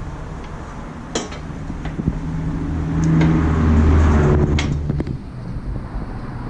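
A few sharp metallic clinks as a mower blade is worked back onto its star-shaped hub, over a low hum that swells and fades around the middle.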